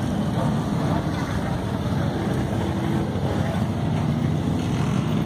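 Steady low rumble of motorcycle engines running in the street.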